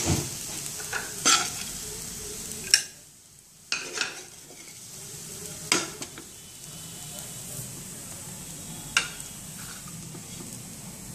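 A spatula scraping through cooked rice and knocking against a non-stick frying pan and a plastic plate as the rice is scooped out. There are several sharp knocks at irregular intervals, the loudest about three seconds in.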